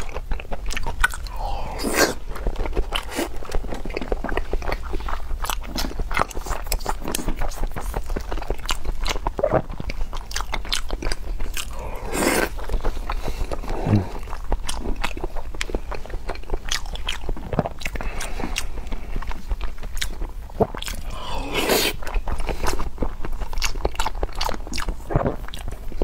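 Close-miked chewing and biting of raw salmon sashimi, with many short mouth clicks and smacks throughout.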